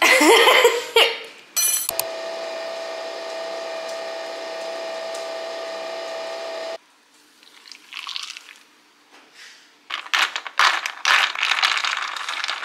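Nespresso Vertuo coffee machine brewing: a steady, even whir with one clear tone that cuts off suddenly about halfway through. Near the end, rapid clinks and rattles in a glass as the coffee is handled.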